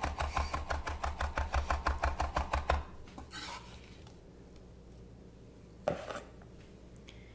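Chef's knife rapidly chopping cilantro on a wooden cutting board, about seven quick, even strokes a second, stopping about three seconds in. A single knock follows near the end.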